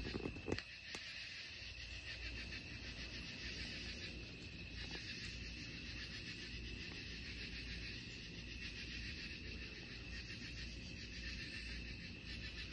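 Night insect chorus: a dense, steady trilling of many insects such as crickets. A few sharp clicks sound in the first second.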